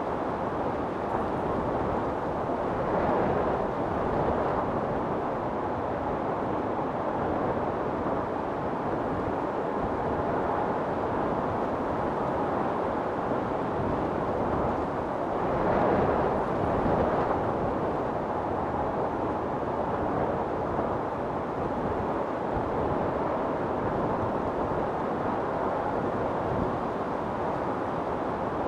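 Wind storm: strong wind blowing in a steady rush, swelling in gusts about three seconds in and again about sixteen seconds in.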